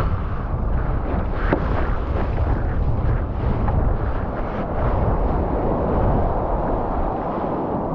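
Wind buffeting the microphone: a steady, heavy rumble with uneven gusts.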